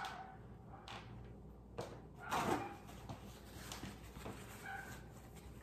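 A dog barking in the background, the loudest bark about two and a half seconds in, with a few light knocks from a wire soap cutter being worked.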